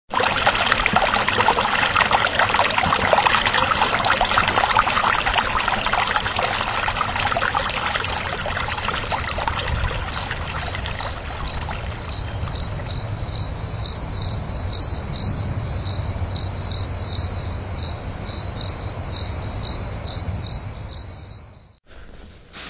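A cricket chirping in a steady rhythm, about three high chirps a second, growing clearer in the second half over a rushing background hiss that fades. Everything stops abruptly about a second before the end.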